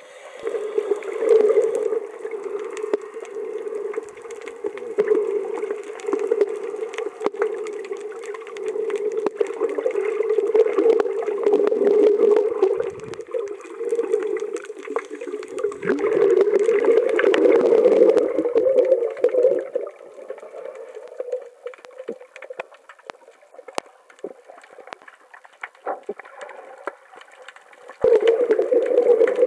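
Muffled underwater sound of water moving around the camera: a steady, droning rush that swells and fades, with scattered sharp clicks. It is quietest for a stretch near the end, then rises again.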